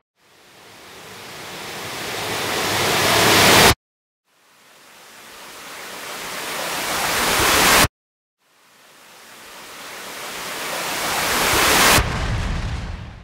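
Noise riser sound effect played three times: a whooshing hiss that swells steadily louder and brighter over about four seconds, then cuts off abruptly. The third swell lands on a low hit that dies away near the end.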